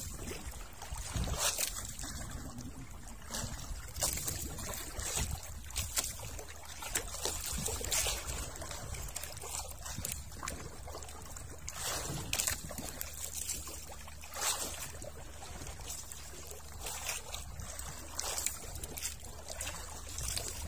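Water trickling and lapping against the hull of a small wooden boat, with scattered light knocks on the boat and a faint steady low hum underneath.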